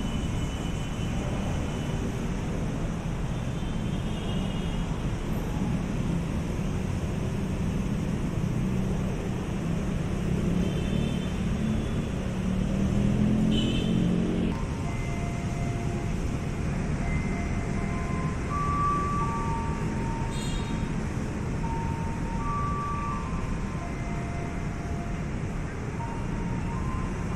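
Steady rumble and running noise of a KRL electric commuter train moving through a station, heard from on board. About halfway through it gives way to platform noise, with a series of short held electronic tones at several different pitches.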